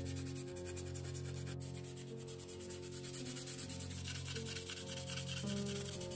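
Sanding sponge rubbed back and forth over the plastic fuselage of a scale helicopter model in quick, even strokes, over soft background music of sustained chords.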